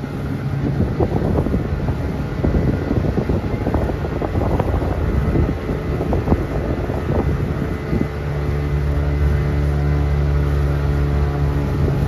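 Wind buffeting the microphone in uneven gusts. A motor's steady low drone comes through plainly from about two-thirds of the way in.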